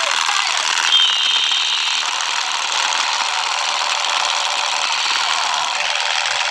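Toy MP5 gun's electronic firing sound, a continuous harsh rattling hiss with a brief whistle-like tone about a second in.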